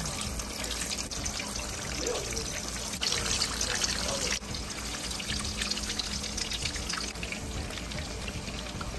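Salmon cakes frying in shallow oil in a cast-iron skillet: a steady sizzle with dense fine crackling, a little louder for a second or so about three seconds in.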